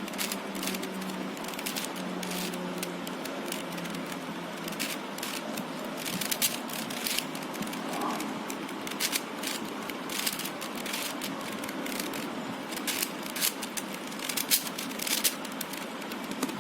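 A 4x4 Rubik's cube being turned by hand: irregular plastic clicks as its layers snap round, some in quick runs, starting a few seconds in, over a steady background hiss.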